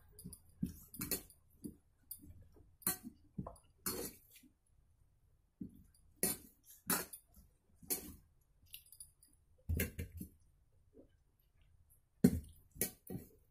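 Eating by hand from a steel plate: irregular clicks and clinks of fingers and a bangle against the metal as rice is mixed and eaten, with mouth sounds of eating. Near the end a sharper clink as a steel bowl is picked up.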